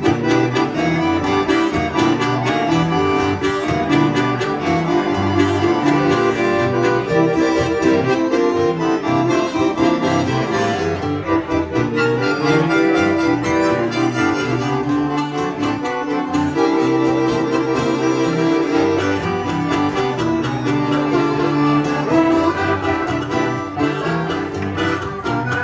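Instrumental break in an upbeat song: accordion playing the lead over strummed guitar, with harmonica.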